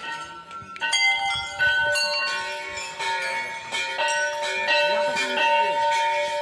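Hanging temple bells being struck again and again. Their ringing tones overlap and die away slowly, with a fresh strike every second or so.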